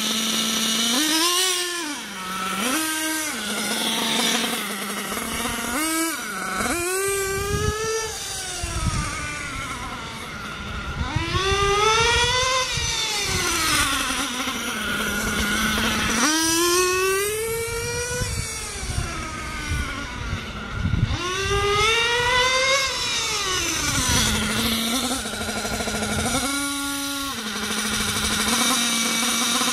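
Losi nitro RC buggy's small glow-fuel two-stroke engine idling with a steady buzz, blipped on the throttle several times. It then runs up and down in three long pitch rises and falls as the buggy is driven away and back, gives another short blip near the end, and settles back to idle.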